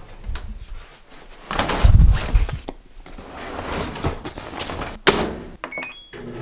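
Front-loading clothes dryer being loaded: the door clicks open, a duvet is pushed into the drum with soft thuds and rustling, the door knocks shut about five seconds in, and then a few short electronic beeps come from the control panel buttons.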